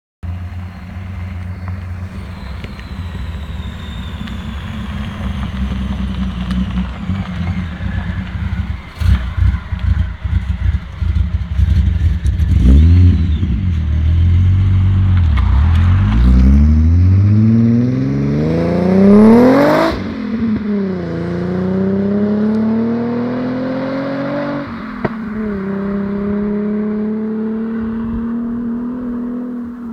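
Supercharged VW Corrado 3.0 VR6 engine running at low revs, then pulling hard under full acceleration with a steeply rising pitch. It shifts up twice, the pitch dropping each time before climbing again.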